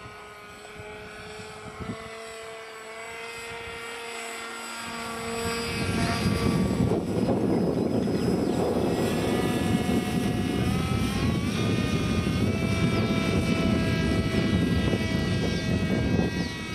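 Small electric motor and pusher propeller of an EPP foam model plane whining in flight, its pitch shifting and climbing about eleven seconds in. About six seconds in it gets much louder, with a rushing noise underneath.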